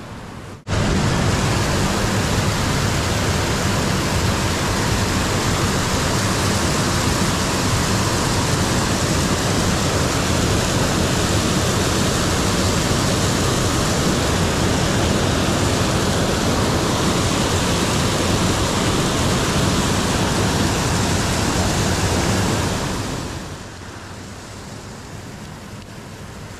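Water pouring over a weir spillway, a loud steady rush close by. It cuts in abruptly just under a second in and drops to a quieter rush a few seconds before the end.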